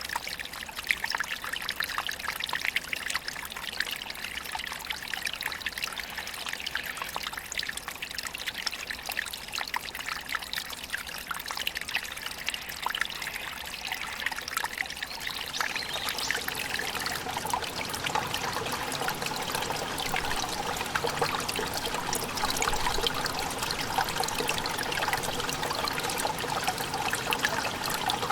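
Water of a small waterfall pouring and splashing steadily, with fine spattering. From about 16 seconds in, the rush grows fuller and a little louder, with more low-pitched splashing.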